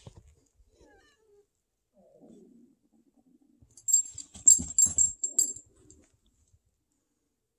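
A cat hidden under a bed growls and cries at a dog pushing its nose in, loudest about four to five and a half seconds in. A jingle of metal tags and bumps comes with it as the animals scuffle.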